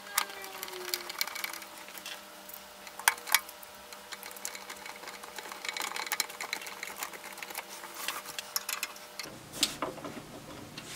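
A hand screwdriver driving the screws of a UPS's sheet-metal cover: small irregular clicks and fine ticking as the screws turn, with a few sharper metallic clicks.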